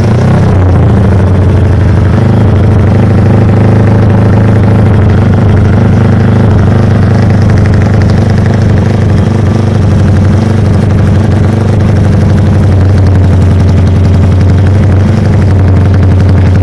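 Single-cylinder motorcycle engine with a racing carburettor running steadily at a fast idle through a loud aftermarket exhaust, giving a rapid, even, choppy exhaust beat. Revs stay about level throughout, without clear throttle blips.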